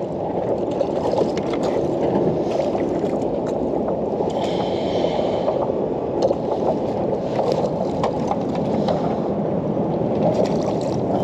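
Steady water sloshing and lapping against a kayak hull, with scattered small knocks and clicks as a fish is brought alongside and lifted into a landing net.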